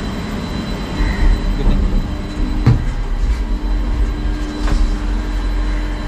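Gondola lift station machinery running with a steady low rumble as a cabin comes round the bull wheel, a steady hum joining about two seconds in. A sharp knock comes about two and a half seconds in, and a lighter click near the end.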